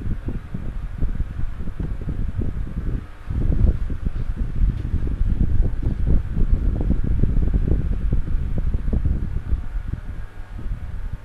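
Low, uneven rumbling noise with no speech or music, dipping briefly about three seconds in.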